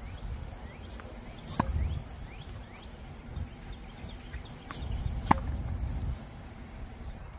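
Two tennis balls struck hard with a racket, about four seconds apart, each a sharp pop with a brief ring of the strings; the second is the louder, with a faint knock just before it.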